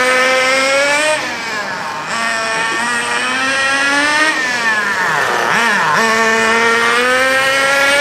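Small SH .18 nitro engine of a 1/8 HSP Camper RC buggy running during break-in at just under half throttle. Its high whine climbs and falls as the throttle is opened and eased, with a sharp dip in pitch about five and a half seconds in.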